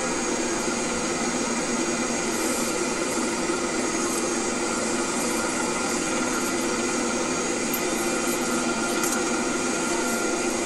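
Steady roar of Niagara Falls' falling water, loud and unbroken, with faint steady tones running through it.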